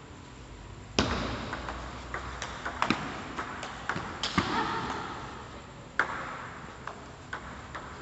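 Table tennis rally: the ball clicking sharply off paddles and the table in an uneven string of hits, the loudest about a second in and again about six seconds in.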